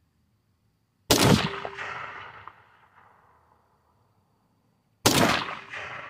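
Two shots from a DPMS Panther Arms AR-15 in 5.56 mm firing green-tip ammunition, about four seconds apart. Each sharp crack trails off over about two seconds.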